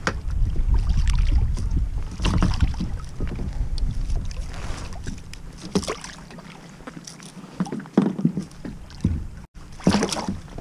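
A hooked largemouth bass is brought alongside a kayak and landed: scattered knocks and splashes against heavy wind rumble on the microphone, which is strongest in the first few seconds.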